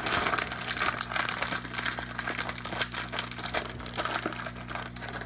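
Plastic packaging crinkling as it is handled, a dense run of small crackles, over a steady low hum.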